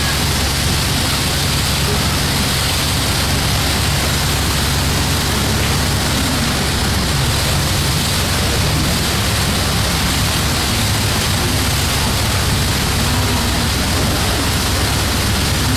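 Steady rush of churned wake water with a low engine drone beneath, heard from aboard a moving ship; jet skis run alongside in the wake.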